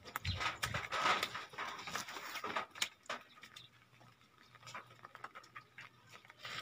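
Footsteps in sandals on wet concrete and dirt: irregular taps and scuffs, busiest in the first three seconds and sparser after.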